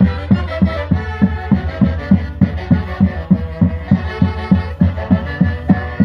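A live band plays Andean Santiago dance music, saxophones and other wind instruments carrying the tune over a steady low beat of about three strokes a second.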